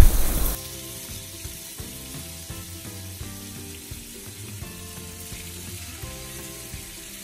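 Marinated chicken pieces sizzling in hot oil in a pan, loud with a sharp crackle right at the start, then dropping about half a second in to a faint sizzle under quiet background music.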